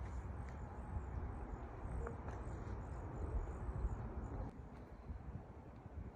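Outdoor ambience: a steady low rumble with faint, short high-pitched chirps and a few faint clicks, getting quieter about two-thirds of the way through.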